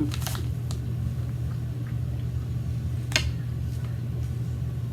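Eating sounds at a table: two sharp clicks, one at the start and a louder one about three seconds in, over a steady low hum.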